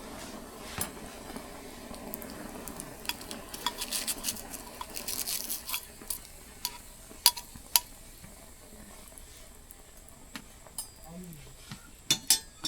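A utensil clicking and scraping against a small metal dalgona ladle as sugar is stirred over a flame, with a faint sizzle. The clicks cluster in the middle, two loud ones follow, and there is a quick run of taps near the end.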